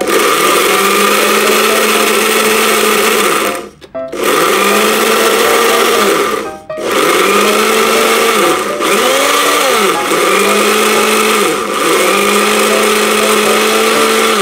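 Countertop electric blender motor running at speed, blending a fruit mixture. It cuts out briefly twice, near four seconds and again about six and a half seconds in, and its pitch sags and recovers several times as the buttons are pressed.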